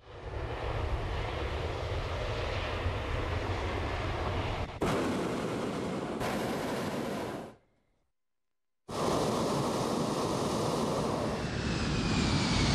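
Hot-air balloon's propane burner firing: a steady, loud rushing noise, cut off for about a second around eight seconds in and then running on.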